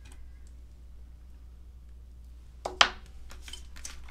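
Clear stamps and an acrylic stamping block handled on a craft table: one sharp knock a little under three seconds in, then a few lighter clicks and taps, over a steady low hum.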